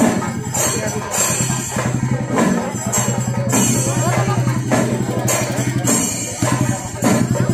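A temple-festival percussion ensemble of the kind played in Kerala: fast, continuous drumming with cymbals clashing again and again.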